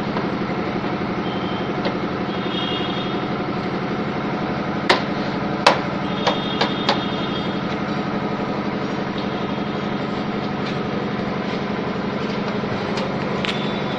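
An electric motor humming steadily, with several sharp clicks or knocks about five to seven seconds in and another near the end.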